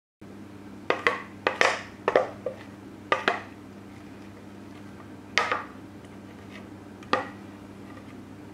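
Metal spoon clinking and scraping against a glass mixing bowl while scooping out muffin batter. There is a quick run of sharp clinks in the first few seconds, then two single clinks further apart, over a steady low hum.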